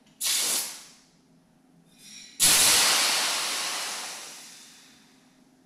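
Compressed-air bait gun for boilie paste hissing: a short blast of air just after the start, then a louder blast about two and a half seconds in that fades out over a couple of seconds.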